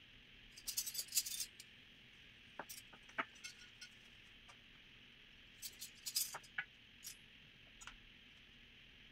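Gold-coloured metal cutlery clinking as knives and forks are picked up and laid down at place settings, in short bursts of clicks about a second in, near three seconds and around six seconds, with a few single clinks after. A faint steady hiss runs underneath.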